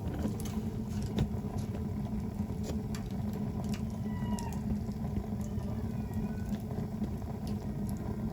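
Wood bonfire burning: a steady low rush of flame with scattered sharp crackles and pops from the burning wood.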